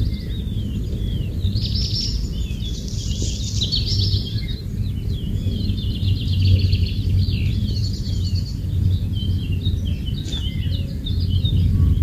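Several birds chirping and singing at once: many short, sliding chirps and a few buzzy trills, over a steady low background rumble.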